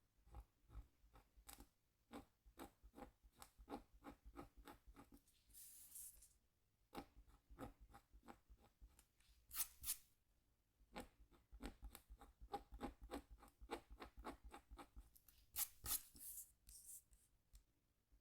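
A scratch tool scraping short strokes into a scratchboard: quick, faint scratches, several a second, in runs with short pauses between them. A few brief, louder hissy sweeps break in around the middle and near the end.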